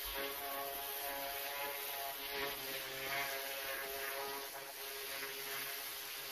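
Pressure washer blasting block paving: the water jet hisses against the bricks over the steady drone of the machine's engine and pump.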